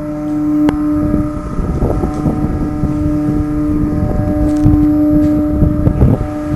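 Steady droning hum from the ship's machinery, with wind buffeting the microphone from about a second and a half in and a single click near the start.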